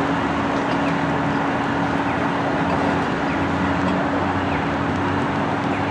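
SMART Nippon Sharyo diesel multiple unit's diesel engines running as the train departs, a steady drone with a constant hum.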